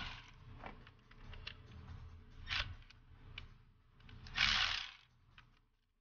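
Hand ratchet clicking in several short spurts, the longest about four and a half seconds in, with scattered single clicks between, as a fuel rail bolt is worked loose.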